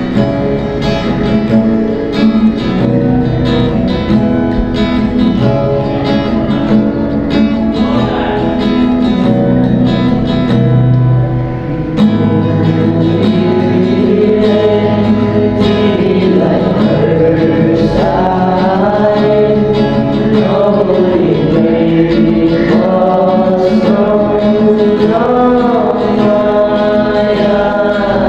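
Background song with guitar and singing; the sung melody comes in about halfway through.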